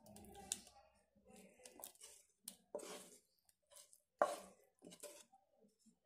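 A wooden spatula scraping cooked vegetables out of a frying pan into a bowl of beaten egg: an irregular string of short, faint scrapes and knocks.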